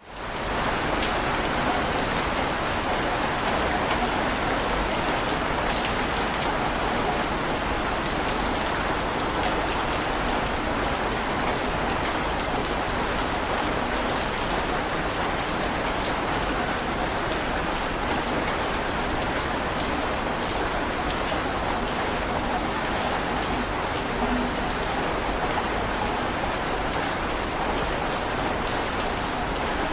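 Heavy rain falling steadily, a dense even hiss with scattered drop hits, fading in quickly at the start.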